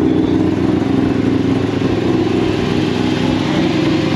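Engine of a widebody Mazda RX-7 running loud and steady at low speed, with a rapid, even pulsing note.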